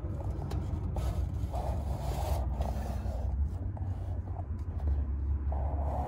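Steady low rumble with patches of rubbing and scraping noise and a few light clicks, typical of a handheld phone being moved about inside an equipment cabinet.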